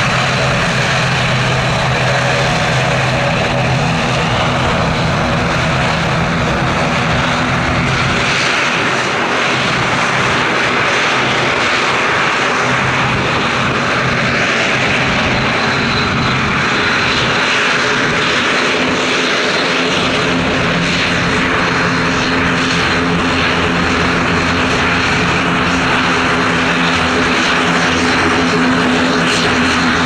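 ATR 42-600 twin turboprop, its Pratt & Whitney PW127 engines and propellers running steadily at taxi power as it taxis and turns on the runway: a continuous propeller hum with an engine whine, its low tones shifting slightly about two-thirds of the way through.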